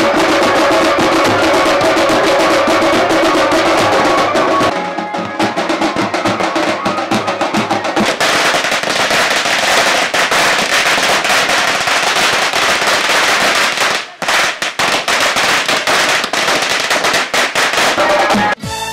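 Music for about the first five seconds, then a firecracker in a small red tube going off, a dense rapid string of pops and crackles with a short break about nine seconds later. It cuts off suddenly near the end.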